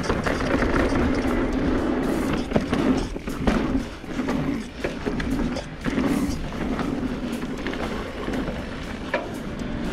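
Riding noise of a 2019 Specialized Turbo Levo e-mountain bike descending a packed-dirt trail: a steady rushing rumble from its knobby Maxxis Minion tyres rolling on the dirt, broken by sharp knocks and rattles as the bike hits bumps, the loudest about two and a half and three and a half seconds in.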